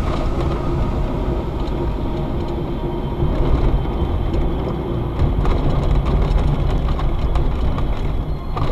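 Steady road and engine rumble heard from inside a moving car's cabin, recorded by a dashcam.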